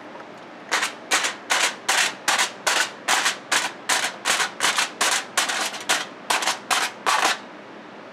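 Aluminium foil stretched over a baking dish being poked full of holes, a sharp crackle with each poke. About twenty pokes in a steady run, roughly three a second, stopping shortly before the end.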